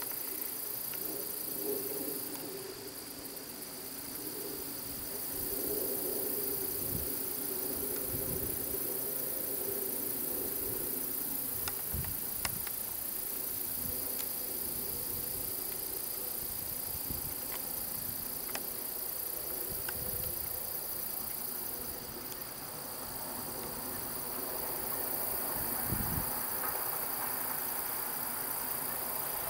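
Crickets and other insects chirring steadily. Under them, strongest over the first ten seconds, is a faint, low, held chord of several tones: the distant steam whistle of Norfolk & Western 475. A few short low thumps come now and then.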